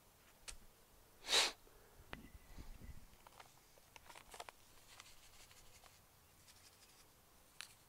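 A short, loud hiss-like burst about a second and a half in, followed by scattered faint clicks and rustles of hands working soil and handling garden containers at a planting hole.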